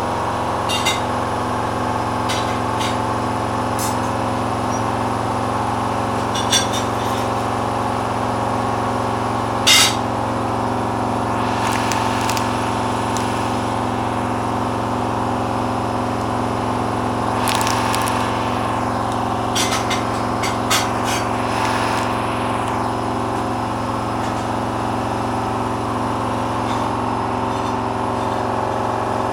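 Hoover washing machine running in its final spin stage, a steady motor hum with a low drone under it. A few sharp clinks come in the first ten seconds, with short swishes of the drum and load later on.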